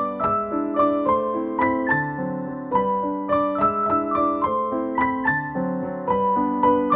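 Background piano music: a gentle melody of single notes struck several times a second over held chords.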